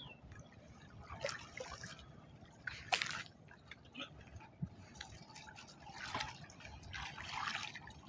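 Shallow floodwater splashing and sloshing around a wooden boat as people step off it and wade, with one sharp knock about three seconds in.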